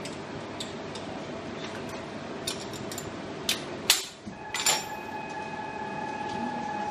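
Metallic clicks and clanks from a 2001 Komori Lithrone L428 offset press as the plate clamps and plate are handled at the plate cylinder during a plate change, over a steady machine hum. The loudest clank comes about two-thirds of the way in, and a steady tone sets in with it and carries on.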